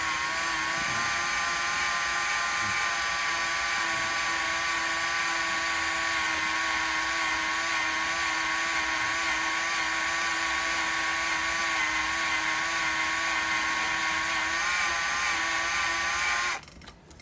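Electric drill running steadily with a left-hand 1/8-inch cobalt bit, drilling into a broken steel bolt in an engine block: one even whine that wavers slightly in pitch and cuts off suddenly near the end as the trigger is released.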